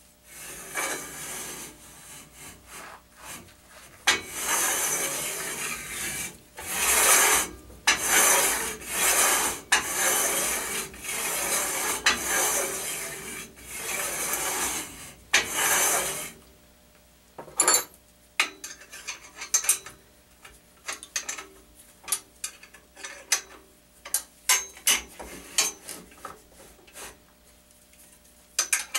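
Steel-on-steel sliding and scraping in about ten strokes, each roughly a second long, as the carriage of a homemade lathe rifling attachment is pushed back and forth along its rails over the sine bar. The strokes give way past the middle to a run of irregular sharp metallic clicks and ticks.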